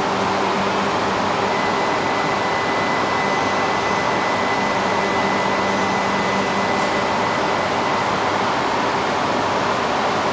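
Steady hiss and low hum of a stationary E3 series Shinkansen's cooling fans and auxiliary equipment running at the platform, with a faint thin high whine from about a second and a half in until about eight seconds.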